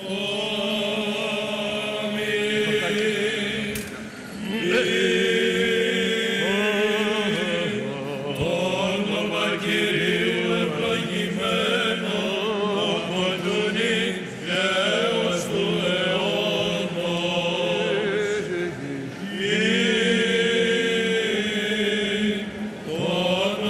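Greek Orthodox Byzantine chant: chanters sing a wavering melismatic melody over a steady held drone (the ison). The melody pauses briefly a few times.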